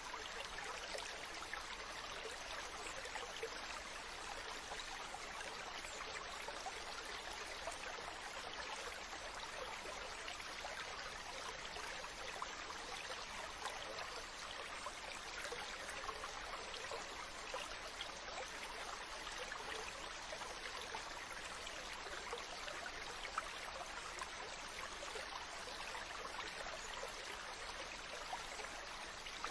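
Ocean water washing steadily: a continuous even rush with fine fizzing crackle and no distinct wave swells.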